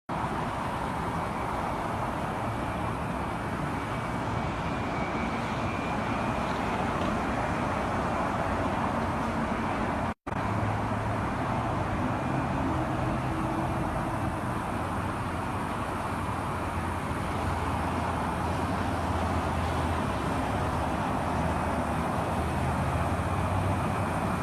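Steady vehicle noise, an even rush over a low motor hum, broken once by a brief dropout about ten seconds in.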